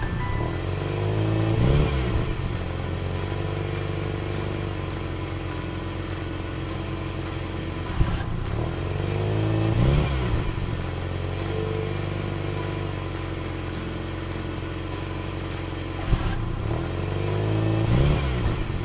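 Looped background music with a revving, vroom-like sweep that rises and falls, repeating about every eight seconds, each time opened by a sharp click.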